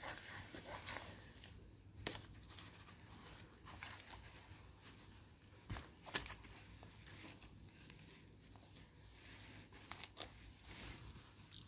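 Wet, muddy sand being scooped and scraped with a toy shovel made from a high-heeled shoe: faint crunching and scraping, with a few sharp knocks, the loudest about 2 seconds and 6 seconds in.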